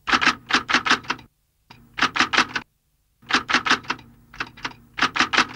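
Typewriter keys striking in quick runs of several strokes, with short pauses between the runs.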